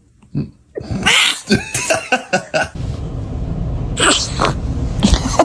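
Newborn baby sneezing: a sharp sneeze about a second in and another about four seconds in, with short small sounds between them.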